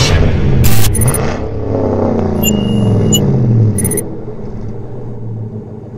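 Intro sound effect built on a vehicle engine revving, its pitch dropping away over a couple of seconds, with a sharp hit about a second in and short electronic glitch blips a little later. The engine sound fades out near the end.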